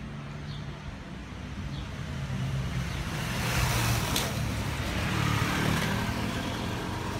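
Street traffic with motorcycles passing close by: a low engine hum that grows louder through the middle and eases off slightly near the end.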